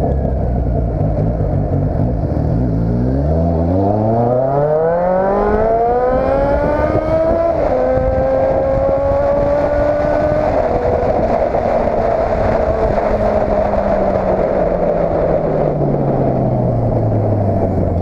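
Motorcycle engine and exhaust accelerating hard from low revs, the pitch climbing steeply, with two gear changes: a sharp drop about seven and a half seconds in and another about ten and a half seconds in. After the second shift the revs fall slowly as the bike eases off, with a steady rush of wind noise underneath.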